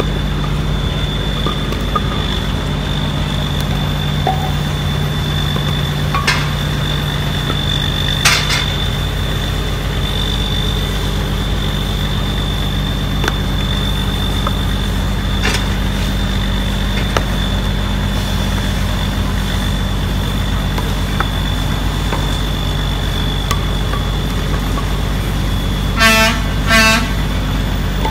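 A large engine runs steadily with a low hum and a high, thin whine, with a few sharp knocks along the way. Two short horn toots come near the end.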